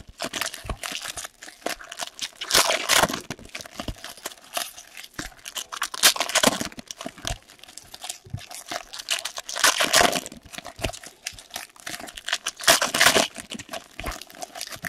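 Foil trading-card pack wrappers being torn open and crumpled by hand, one after another, with a loud crinkling burst about every three to four seconds and the rustle of cards being handled in between.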